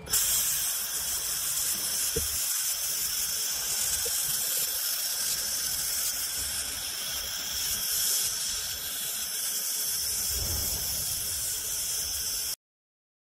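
Fiber laser welding head on a robotic arm welding a steel tube to a plate: a steady high hiss of the shielding gas and the weld, which cuts off suddenly near the end.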